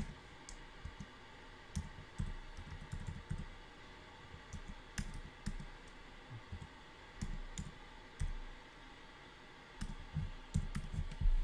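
Typing on a computer keyboard as a licence code is keyed in: irregular keystrokes in short runs, with a few brief pauses.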